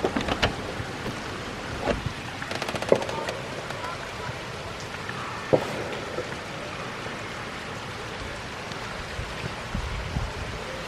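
Steady rain falling on wet paving and grass, a constant hiss of drops. A few sharp knocks stand out, about 2, 3 and 5.5 seconds in, with a quick run of faint ticks just before the second.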